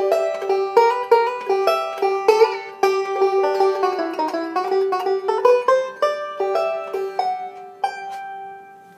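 Hawthorn RB-7 style five-string resonator banjo with a calfskin head and a Huber tone ring, fingerpicked in a run of quick plucked notes. A last note is struck near the end and rings out, fading away.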